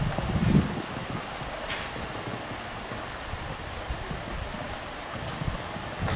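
Steady rain falling, an even hiss throughout, with a brief louder low rumble about half a second in.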